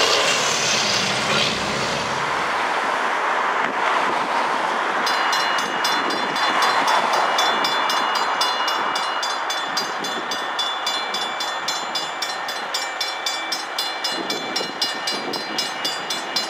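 A heavy truck drives past close by. About five seconds in, the Safetran mechanical grade-crossing bells start ringing steadily at about four strikes a second, as the crossing activates for an approaching train and the gates lower.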